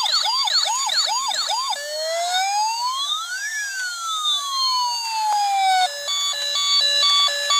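Electronic siren sound effect from a battery-operated toy fire rescue van. It starts with a repeating whoop, about two a second, changes at about two seconds in to one slow rising-then-falling wail, and ends with a quick alternating two-tone hi-lo pattern.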